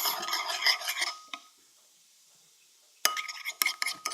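Spoon stirring slime in a bowl, a fast run of clinks and scrapes against the bowl. It stops about a second in and starts again near the end.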